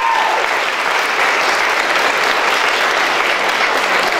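Sustained applause: a crowd of people clapping steadily.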